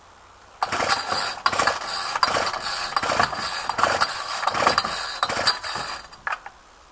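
Ryobi two-stroke string trimmer being pull-started cold on full choke, cranking and sputtering for about five seconds without catching. This is a hard cold start from a trimmer whose carburettor was out of adjustment.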